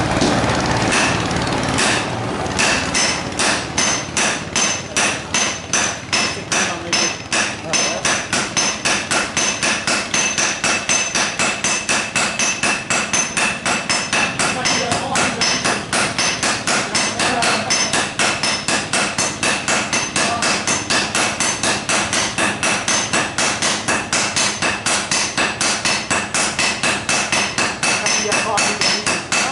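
Two sledgehammers striking red-hot steel on an anvil in alternation while a knife blade is hand-forged. The blows come in a fast, steady rhythm of about four a second, each with a metallic ring.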